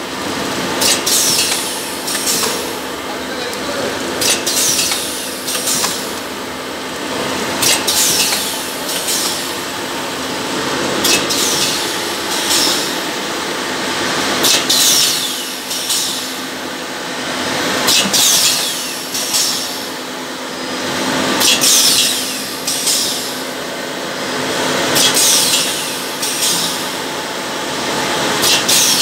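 Liquid pouch packing machine running, with a steady hum and a short burst of clicks and hiss that repeats about every three and a half seconds with each machine cycle.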